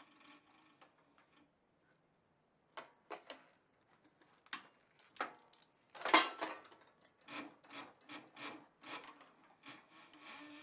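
Thick saddle leather rubbing and scraping as it is turned and shifted under a heavy-duty leather sewing machine's needle and presser foot, in a string of irregular short scrapes and knocks. The first couple of seconds are nearly silent, and the loudest scrape comes about six seconds in.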